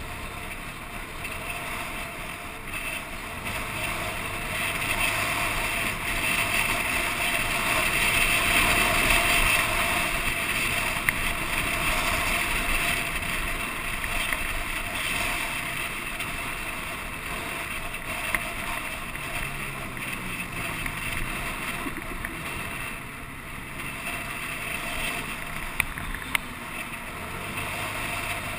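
Wind rushing over the microphone with road and engine noise from a vehicle moving through traffic. A low engine hum rises and falls, the rush grows loudest about a third of the way through, and there are a few sharp ticks.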